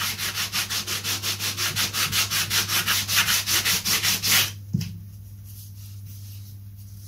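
Hand sanding of balsa wood, quick even back-and-forth strokes at about six a second that stop about four and a half seconds in. One light tap follows, then only a low steady hum.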